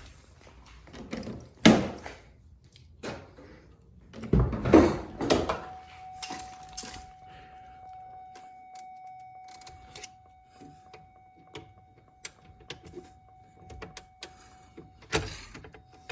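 A car door thuds shut, with keys jangling and clicks of handling around it, and a cluster of louder knocks about four to five seconds in. From about six seconds in, a steady high electronic tone sounds without a break.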